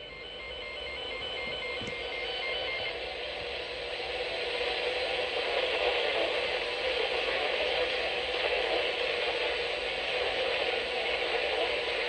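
Radio static from a Reecom weather alert radio tuned to a weak FM signal: a steady hiss that grows louder over the first few seconds and then holds.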